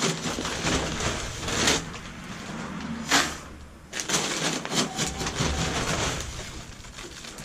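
Dried sugar beet pulp being poured out of a paper feed sack: the stiff paper rustles and crackles while the dry shreds pour out with a rattling hiss. It comes in uneven surges, with a sharp crackle about three seconds in and a busy stretch of crackling from about four to six seconds.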